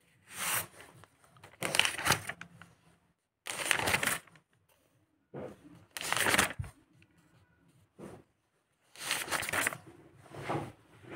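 Paper pages of a thick book being turned one after another, about six rustles a second or two apart.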